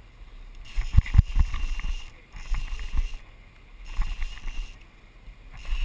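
Conventional fishing reel being cranked in four surges of about a second each, with short pauses between, while an angler fights a hooked yellowfin tuna. A couple of low thumps come about a second in.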